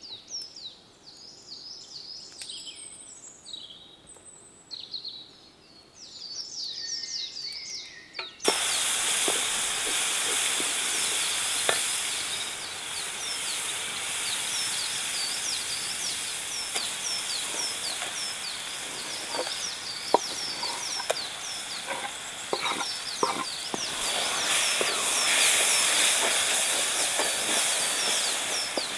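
Birds chirping against a quiet background. About eight seconds in, this cuts suddenly to the loud, steady sizzle of a tomato and eggplant mixture frying in a wide metal pan over a wood fire, with occasional clicks of a wooden spatula stirring it.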